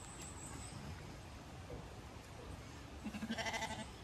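A Zwartbles sheep bleats once, a single wavering bleat about three seconds in, lasting just under a second, over a steady low background noise.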